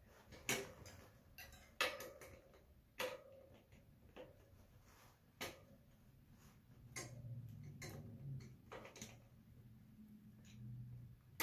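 Sparse, irregular light clicks and taps, a second or two apart, as a BMX front wheel is seated in the fork and its axle nuts are turned by hand.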